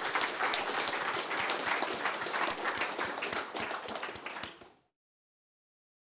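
Audience applauding, a dense patter of many hands clapping that fades away and stops about five seconds in.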